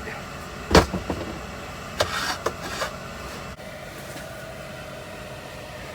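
Metal scrap being handled and set down on a workbench: a sharp metallic knock about a second in, a couple of lighter knocks, then a short scrape a second later, over a steady background hum.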